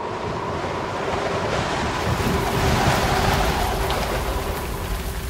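Channel intro sound effect: a rushing, wave-like noise that swells to a peak about three seconds in and then eases off, over a held ringing tone that stops near the end.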